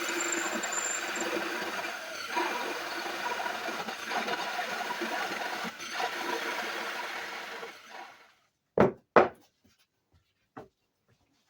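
A power tool running with a rubbing, abrasive sound for about eight seconds, then stopping and fading out. Two sharp knocks follow, then a few small clicks.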